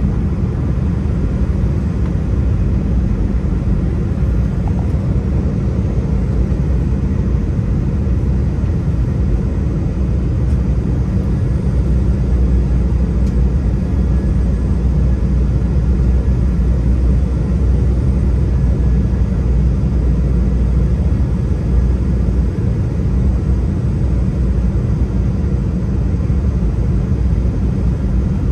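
Steady low rumble of an airliner in flight, heard from inside the passenger cabin.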